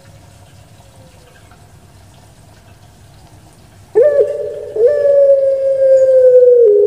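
Puter pelung dove (Streptopelia risoria) cooing. After a quiet start, about four seconds in it gives a short note, then one long, loud coo of about two seconds that sinks slightly in pitch.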